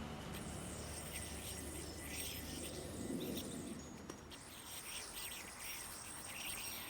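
Outdoor ambience: insects trilling steadily at a high pitch, with scattered bird chirps.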